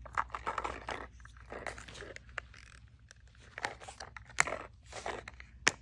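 Plastic toy packaging crinkling and crackling as it is handled and pulled at, in irregular crackles with a couple of sharp snaps near the end.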